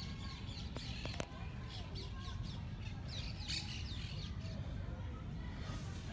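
Birds chirping in the background, short high calls scattered throughout, over a steady low rumble, with two sharp clicks about a second in.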